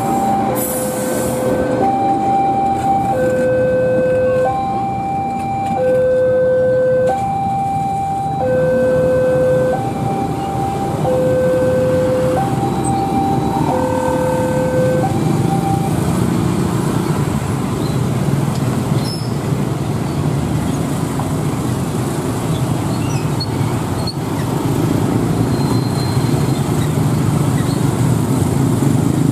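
Railway level-crossing alarm sounding its two-tone warning, a low and a high tone alternating about every 0.7 s, which stops about halfway through. After it stops, a low rumble from the approaching inspection train grows louder.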